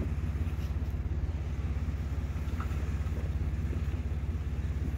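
Off-road 4x4 engine running steadily at low revs, a low even drone.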